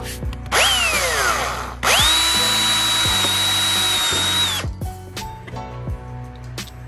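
Small electric drill boring a bolt hole through a PVC pipe fitting: a short burst that spins down, then a steady high whine for nearly three seconds that winds down as the trigger is released.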